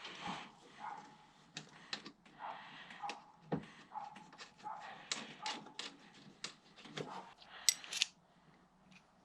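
Hand tools and metal car parts being handled: irregular clicks, knocks and clinks, with a brighter cluster of metallic clinks near the end.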